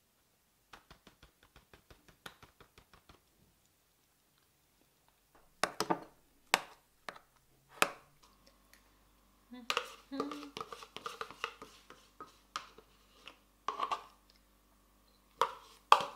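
A spoon scraping and knocking against a plastic tub and a bowl while scooping out quark. First a run of light, even ticks, then a few sharp knocks, then a busier stretch of scrapes and clicks over a low steady hum that comes in about halfway.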